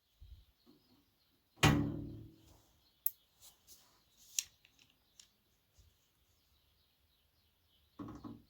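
A hollow metal clunk with a ringing decay about one and a half seconds in, a few sharp clicks and clinks after it, and a shorter knock near the end: metal parts of an amplifier being handled during disassembly.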